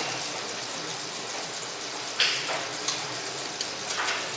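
Steady hiss of background noise with a few brief rustling scrapes, about two seconds in and near the end, as a person works by hand close to the microphone at an open electrical control panel.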